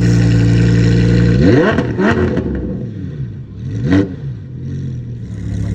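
Lamborghini Huracán STO's naturally aspirated V10 engine and exhaust, running steadily, then revved in three short throttle blips, each rising and falling quickly in pitch.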